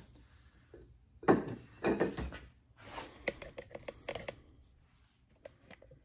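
A ceramic bird feeder and its lid being handled and set down on a workbench: knocks and clinks about a second and two seconds in, with one short high clink. Then a run of small clicks and rustles that fade toward the end.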